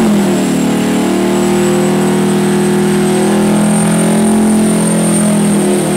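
Diesel race truck doing a burnout: the engine is held at steady high revs while the rear tyres spin in smoke, a loud, unchanging note.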